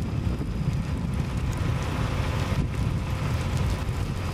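Strong wind buffeting the camcorder microphone in a steady low rumble as a tornado nears.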